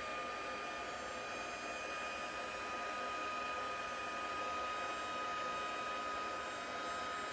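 Craft heat gun blowing steadily, a rush of air with a steady high whine, as it melts embossing powder for heat embossing.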